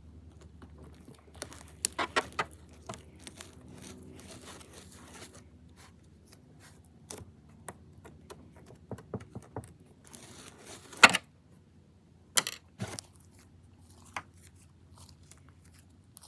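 Black-painted Elmer's glue slime being worked and stirred: scattered sticky clicks, crackles and small pops, with one sharp louder click about eleven seconds in.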